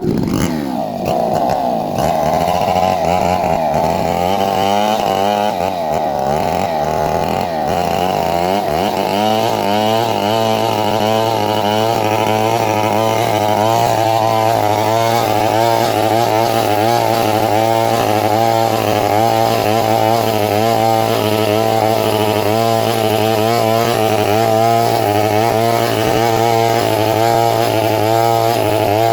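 Two-stroke chainsaw revving up at the start, then running at high speed with its engine note wavering up and down as it cuts through a coconut palm trunk.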